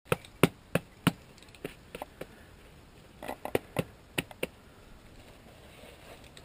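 A climber's hands and gear on sandstone close to the camera: a run of about a dozen sharp clicks and knocks over the first four and a half seconds, then only faint background.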